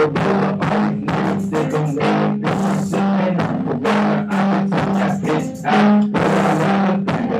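Music with a steady drum beat over a repeating bass line.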